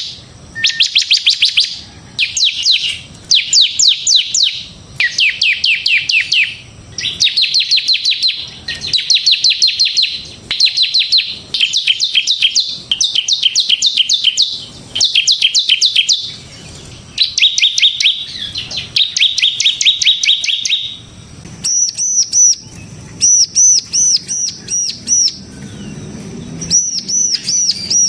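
Bar-winged prinia (ciblek) singing in rapid trills of sharp down-slurred notes, in bursts about a second long, one after another. About three quarters of the way in, the song changes to a run of high, arched notes.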